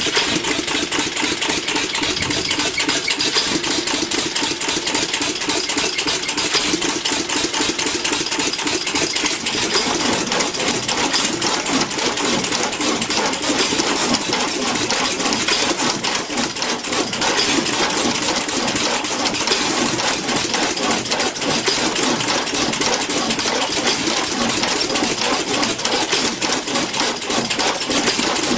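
Vintage stationary engine running with a steady, rapid mechanical clatter.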